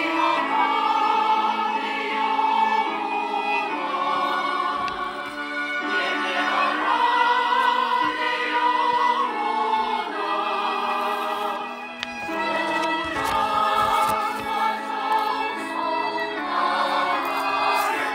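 Church choir singing a hymn in sustained, overlapping voices, moving from phrase to phrase every couple of seconds.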